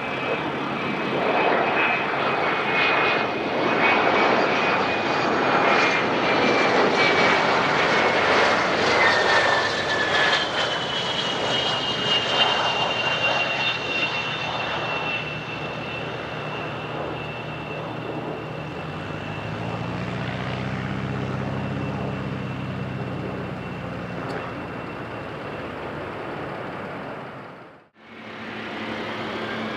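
Bombardier Challenger 350 business jet's twin turbofans passing by: a loud jet roar with a high turbine whine that drops in pitch about ten seconds in, then fades slowly. The sound cuts out for a moment near the end.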